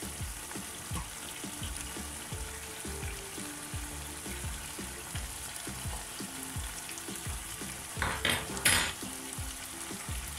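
Spaghetti at a rolling boil in a pot of water, being stirred with a fork, with steady bubbling and sizzling from the boiling pot and the tomato sauce pan beside it. A couple of sharp knocks about eight seconds in.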